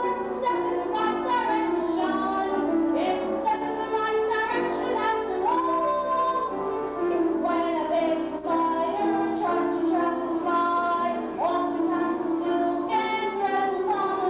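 A woman singing a song with instrumental accompaniment, her voice carrying the melody in sustained, sliding notes.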